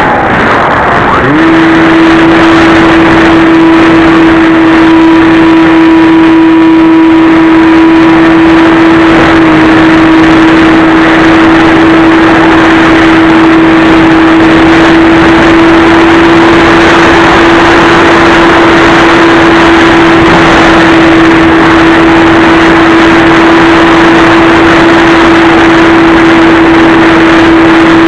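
Electric motor and pusher propeller of a Multiplex Easy Star II RC glider in flight, heard close with loud wind rush. About a second in, the throttle opens and the motor settles into one steady, high, even drone that holds through cruise.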